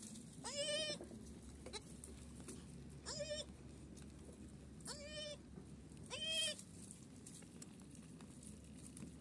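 A goat bleating four times: short calls with a quavering pitch, a second or two apart.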